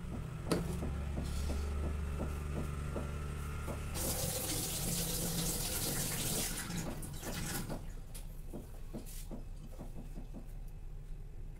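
Tap water running into a sink, heaviest from about four seconds in and dying away by about seven seconds, with small knocks and clicks throughout.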